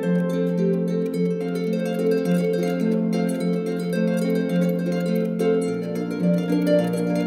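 Solo harp being plucked: a melody of ringing notes over bass notes that change about once a second, with a deeper bass note coming in near the end.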